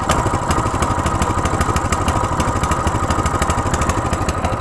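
Hisun Pit King 200 (Coleman CT200U-EX) mini bike's 196 cc air-cooled four-stroke OHV single-cylinder engine idling steadily, just started cold with the choke on.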